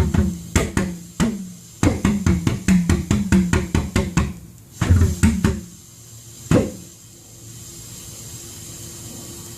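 Homemade valved pulse jet, converted from a Lennox Pulse furnace combustor, popping and sputtering in uneven runs of sharp bangs, a few a second, as it tries to fire. The bangs stop about six and a half seconds in, leaving a steady hiss.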